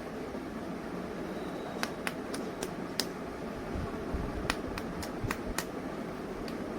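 A series of light, sharp clicks and taps of small plastic toy pieces being handled: five in quick succession about two seconds in, five more a little later, and one near the end, over a steady background hiss.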